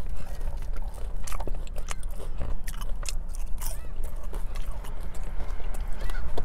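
Close-miked chewing and biting of fast-food French fries: irregular crunches with wet mouth clicks and smacks.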